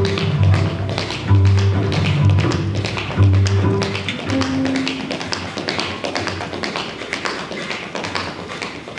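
Tap shoes striking a hard dance floor in fast, dense rhythms over recorded music with a strong bass line. About halfway through the music falls away, leaving the taps nearly on their own.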